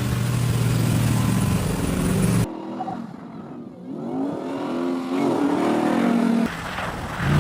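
Ram TRX's supercharged V8 engine running loud and steady, then after an abrupt cut about two and a half seconds in, quieter with its pitch rising and falling as it revs. It jumps back to loud engine noise near the end.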